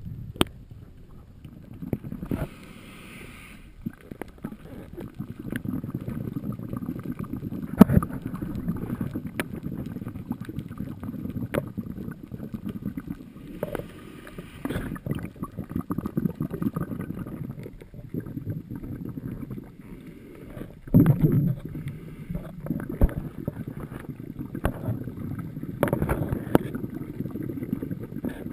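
Muffled underwater sound recorded inside a camera's waterproof housing: a low churning of moving water with scattered knocks, and a couple of short hissing bursts of a scuba diver's exhaled bubbles.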